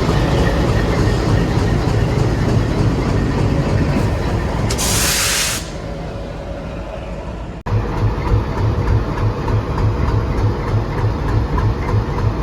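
ALCO WDM-3D diesel locomotive engine idling with a steady low rumble, with a loud burst of air hiss from the locomotive lasting about a second near the middle. The sound drops out abruptly about two-thirds in, and the idle comes back as a regular low throb, about three beats a second.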